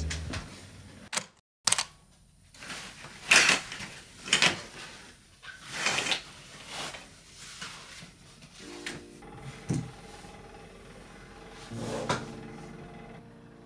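Scattered handling noises in a small room: about half a dozen separate knocks and rustles a second or more apart. Faint steady tones come in about two-thirds of the way through.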